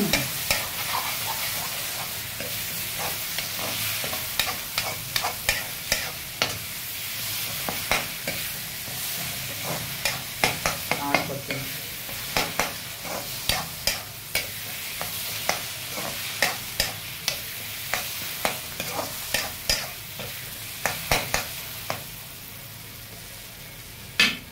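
Steel ladle scraping and clacking against a kadai (wok) as fish and onion-tomato masala are stirred and sizzle in hot oil, cooking down until soft. The clacks come irregularly, often several a second. Near the end the stirring stops, with one last sharp clack, and the sizzle goes on more quietly.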